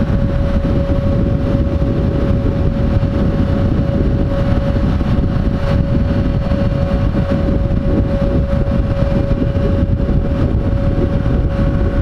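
Friendship water taxi's engine running steadily under way, heard from aboard as a loud low drone with a steady pitched hum over it.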